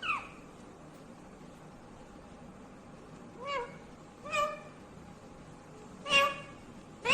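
Indian ringneck parrot giving four short calls with rising and falling pitch: one right at the start, then three more spaced a second or two apart, the last the loudest.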